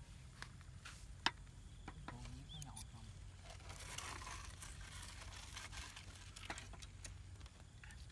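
Knife and fork cutting cooked meat on a wooden cutting board: faint scraping and sawing, with a few light clicks of metal on the board and a longer stretch of scraping about halfway through.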